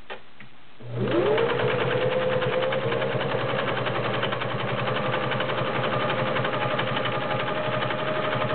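Singer Genie 353 portable sewing machine starting up about a second in and sewing a multi-stitch zigzag at a steady speed. Its motor whine rises as it gets going and then holds, under a fast, even clatter of needle strokes; these machines are a little noisy.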